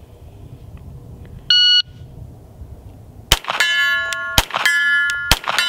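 A shot timer beeps once, then a CZ P07 9mm pistol fires three shots at a steady pace, about a second apart. Each shot is followed by the long ring of a steel target being hit at 50 yards.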